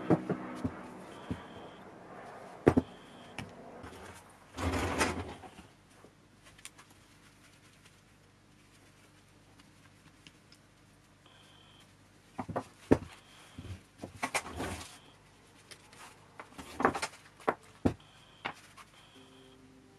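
Hand work on a hydraulic pump at a workbench: tools and small metal parts clink, click and knock as they are handled and set down, with a short rustle about five seconds in. There is a quiet stretch in the middle, then bursts of clicks and knocks toward the end.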